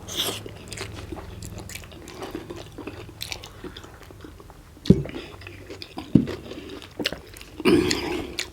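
Eating noises of people chewing and biting into spicy chicken momo dumplings: soft wet chewing with small clicks, and a few louder short knocks about five and six seconds in and near the end.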